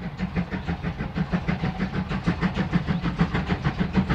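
Steam locomotive working under steam as it approaches. Its exhaust beats come in a quick, even rhythm and grow steadily louder.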